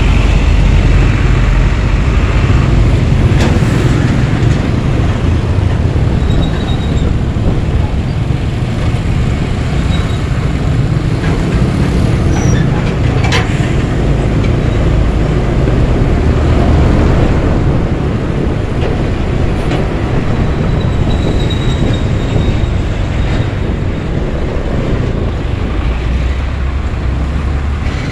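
Heavy road traffic at close range: the diesel engines of container trucks rumbling steadily, mixed with motorcycle engines, with a few brief faint high squeaks.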